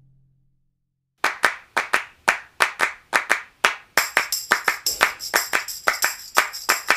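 Background music starting after about a second of silence: a run of sharp handclap-like percussion hits, about four a second. A high shimmering percussion layer joins about four seconds in.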